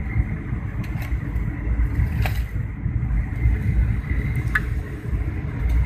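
Airliner cabin noise on the approach to landing: a steady low rumble of engines and rushing air, with a few faint clicks.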